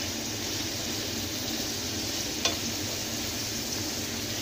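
Thin pork schnitzel cutlets sizzling steadily as they pan-fry in oil, with one sharp click about halfway through.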